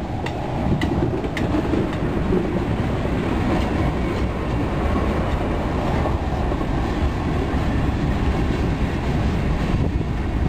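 Freight train cars (tank cars and covered hoppers) rolling past at close range, steel wheels rumbling steadily on the rails. A few sharp clicks come in the first couple of seconds.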